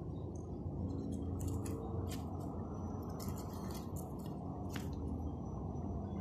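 Flaky baked puff pastry crackling in a few short, sharp crisp bursts as fingers squeeze and lift it, over a steady low rumble.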